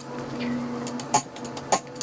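Sharp metallic clinks of tools and hardware being handled, with two louder clinks about half a second apart in the second half.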